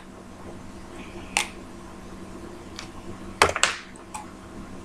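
A few sharp plastic clicks and taps from the highlighter and Bic ink pen being pushed back together: one about a second and a half in, then a quick cluster of three around three and a half to four seconds.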